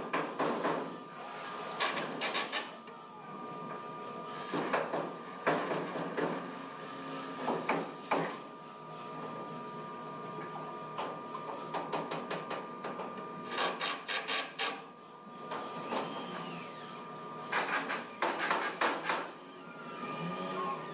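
Handheld power driver driving screws into the rest-house frame in about six short bursts of rapid clicking, each lasting around a second.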